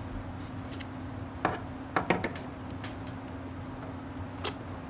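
Hands working a shipping package open: a few short, sharp clicks and taps of packaging being handled, over a steady low hum.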